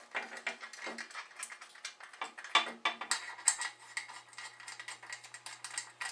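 Light metal clicks and clinks of small bolts and carburetor parts being handled and fitted, a busy run of small taps, the loudest about two and a half seconds in.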